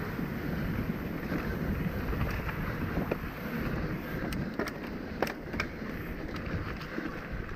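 Mountain bike rolling fast down a dirt trail: wind on the microphone and tyre noise on the dirt, with a few sharp clicks and rattles from the bike in the second half.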